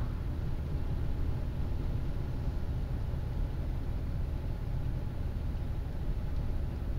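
Steady low rumble of a car driving at speed on an open road: engine and tyre noise heard from inside the cabin.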